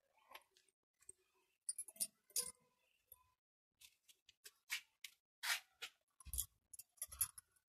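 Faint handling sounds: a scatter of short clicks, scrapes and rustles as lit incense sticks are set into gaps in a brick wall, with a couple of soft thumps near the end.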